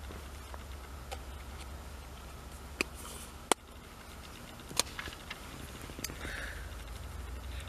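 Handling noise: a few sharp clicks and taps from small objects being handled, the loudest about three and a half and five seconds in, over a steady low hum.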